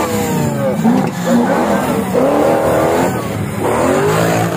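Off-road 4x4 buggy engine revving hard as it churns through deep mud, its pitch swinging down and up. Near the end a steadier, lower engine note takes over.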